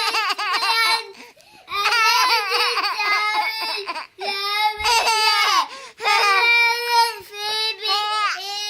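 A baby or toddler's loud, high-pitched crying and squealing, in long drawn-out bouts with short breaks for breath.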